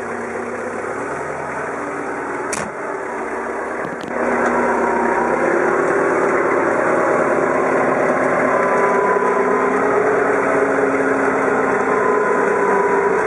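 Manitou MI30 3-tonne diesel forklift engine running, heard from inside the cab. About four seconds in it runs harder and louder and holds there. There is a sharp click a little before that.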